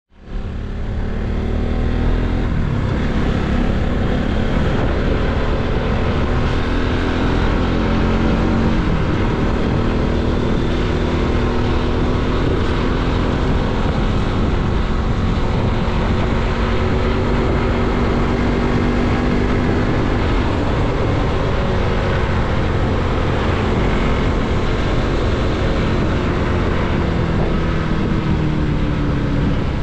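Bajaj Pulsar NS200 single-cylinder motorcycle engine running under way, its pitch slowly rising and falling with the throttle, over a steady rush of noise. It fades in over the first second.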